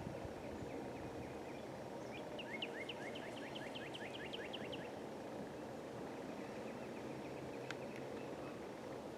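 A songbird singing a quick run of repeated down-slurred whistled notes about two seconds in, followed later by a fainter, softer run of notes, over steady low outdoor background noise.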